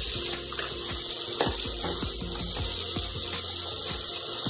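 Chopped onion frying in hot oil in a kadhai: a steady sizzle with frequent small pops.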